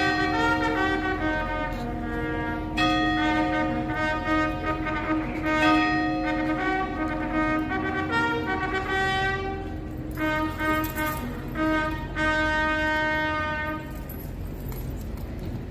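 Brass music led by trumpets, a slow phrase of long held notes with several pitches sounding together, over a low steady hum. The music stops about two seconds before the end, leaving only the hum.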